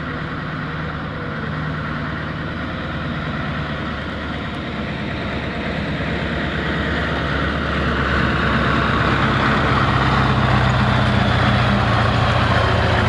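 Scania truck's diesel engine running at low speed as the tractor unit tows a wagon trailer, a steady low engine note that grows louder from about halfway through as the truck draws close.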